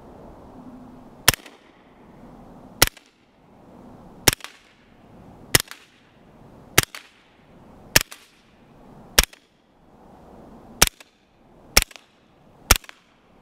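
Suppressed B&T GHM9 9mm firing slow, aimed single shots: ten sharp cracks about one to one and a half seconds apart, each with a short decaying tail and some followed by a fainter tick. The gun wears a Griffin Armament Revolution 9 suppressor in its short K configuration and fires 147-grain standard ball, a subsonic 9mm load.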